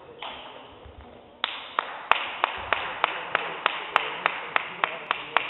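Applause for a finished rally: a small crowd of spectators clapping, with one loud clap standing out in a steady beat of about three a second. It starts about a second and a half in.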